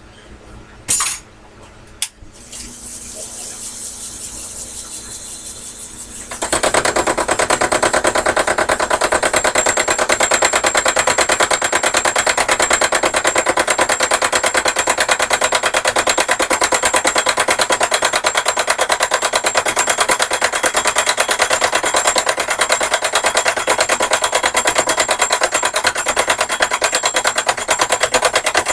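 Sherline lathe starting up with a few clicks and a low hum, then from about six seconds in a loud, very fast, even clatter as the tool takes an interrupted cut, striking the workpiece only on part of each turn.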